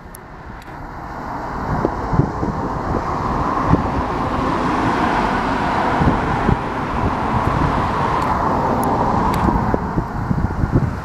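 Steady noise of a passing vehicle that swells over the first few seconds, holds, and eases near the end, with wind buffeting the microphone.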